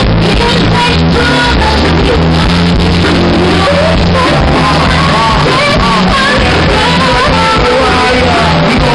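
Live band playing with a woman singing lead into a handheld microphone, her held notes wavering. The mix is loud and dense, and the recording is of poor quality.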